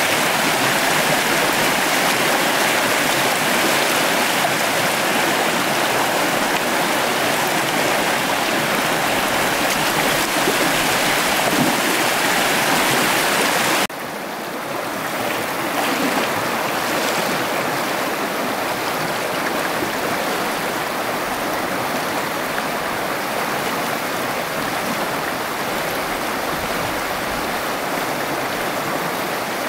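Flowing water rushing steadily, like a stream or a channel pouring over a drop. About fourteen seconds in it cuts abruptly to a slightly quieter, duller rush.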